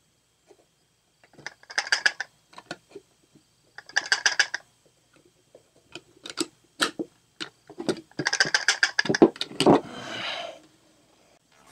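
Hard metal objects being handled: bursts of metallic clicking and rattling, single sharp clicks in between, and a longer rattle near the end.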